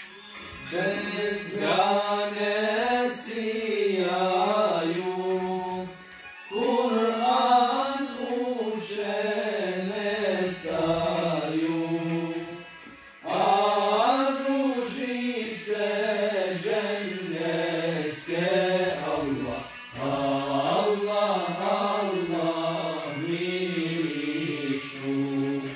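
An unaccompanied male voice singing a Bosnian ilahija (Islamic devotional song) in long, ornamented phrases, with short pauses for breath between them about every six to seven seconds.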